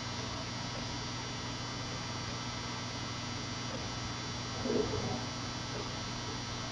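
Steady low electrical hum made of several even tones, with one brief faint muffled sound about five seconds in.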